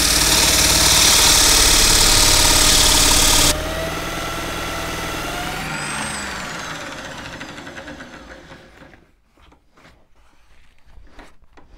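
Sandpaper rasping against a spinning wooden drill handle turned on a threaded rod by a power tool. The sanding stops about three and a half seconds in, leaving the motor running alone. The motor then winds down with falling pitch and fades out, followed by a few faint knocks near the end.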